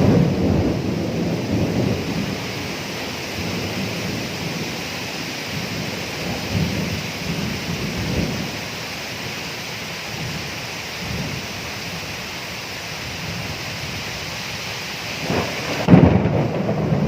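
Steady rain with rolling thunder: a rumble that fades over the first couple of seconds, softer low rumbles in the middle, and a sudden loud thunderclap near the end.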